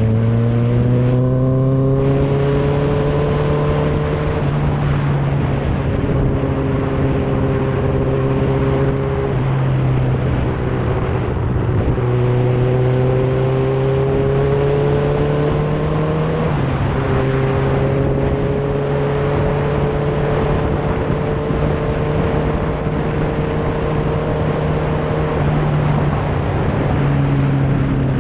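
Motorcycle engine running while riding, its pitch rising over the first couple of seconds and then holding steady, stepping up or down a few times with throttle and gear changes, under a steady rush of wind noise.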